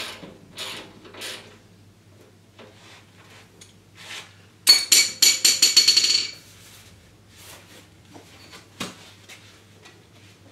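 Steel sheet-shelving panel being handled and bolted onto a lawn-mower chassis: scattered metal knocks and clanks, with a loud run of rapid ringing metallic clicks about halfway through and one sharp knock near the end.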